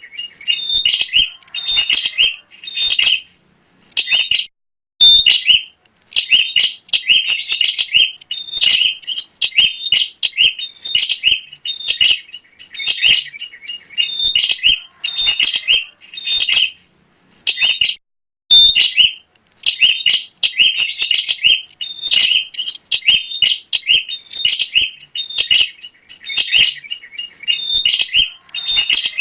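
Prinia (burung prenjak) calling energetically: fast, loud, high-pitched chirps and trills repeated in long bursts, broken by a few brief pauses.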